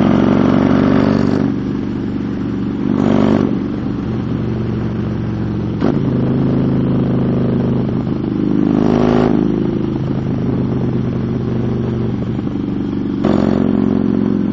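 Motorcycle engine running under way, swelling louder with the throttle three times, with a single sharp click about six seconds in.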